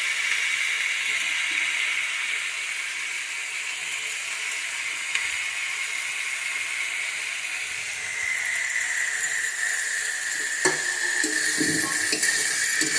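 Vegetables frying in hot oil in a pan, with a steady sizzling hiss that grows louder about two-thirds of the way in as freshly added cabbage cooks. Near the end a spatula scrapes and clinks against the pan as the vegetables are stirred.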